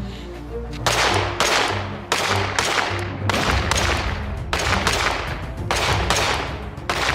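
A compensated Glock 19 pistol firing a steady string of shots, about two a second, starting about a second in, each shot ringing off briefly. Background music plays underneath.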